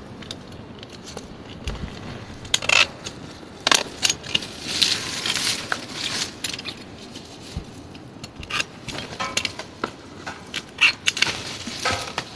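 Garden clippers snipping through dahlia stalks, with irregular sharp snips and the crackle and rustle of dry stems and foliage being cut and handled.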